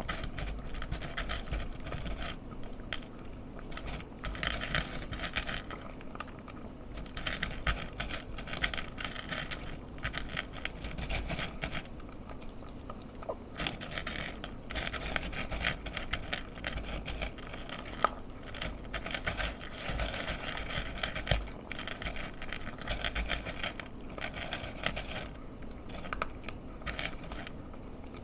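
Pomeranian puppy eating dry kibble from a plastic bowl: rapid crunching and clicking of chewing, with its muzzle and tongue scraping the bowl. It comes in bursts of a couple of seconds with short pauses between.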